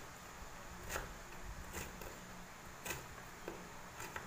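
Kitchen knife chopping carrot sticks into small cubes on a wooden cutting board: faint, sharp knocks of the blade on the board, about one a second at an uneven pace.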